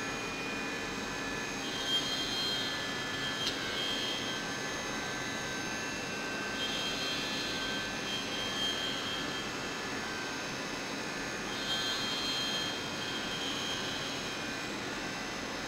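CNC milling machine running with a steady hum and hiss, while a high whine rises and falls away three times.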